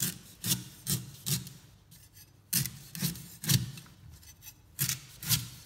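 Large kitchen knife shaving strips off a trimmed young coconut's fibrous husk: short rasping cuts, about two a second, in groups of three or four with short pauses between.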